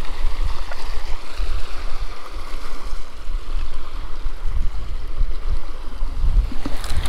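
River rapids rushing steadily, with wind buffeting the microphone in a low rumble.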